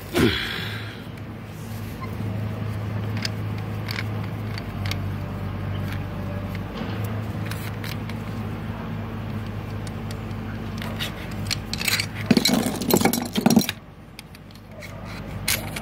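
Hand-turned flaring tool working a copper AC pipe end, giving scattered small metallic clicks over a steady low machine hum. About twelve seconds in comes a second or so of louder metal clinking and scraping as the tool is unclamped from the flared pipe, and the hum then drops.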